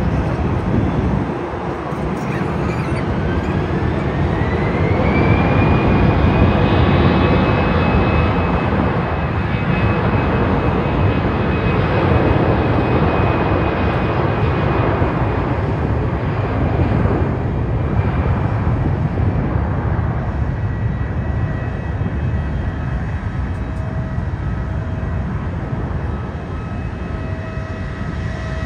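Jet airliner's engines spooling up: a whine rises over the first five seconds and then holds steady under loud jet noise. The noise is loudest a few seconds later and slowly dies away.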